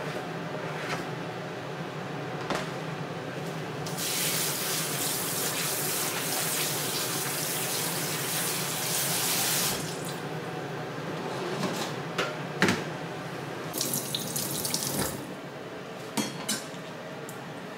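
Kitchen tap running into a sink for about six seconds, starting about four seconds in and then shut off. This is followed by several sharp knocks and clicks of kitchen things being handled, over a steady low hum.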